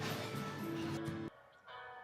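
Background music with sustained notes; it drops off sharply just over a second in, then continues more softly.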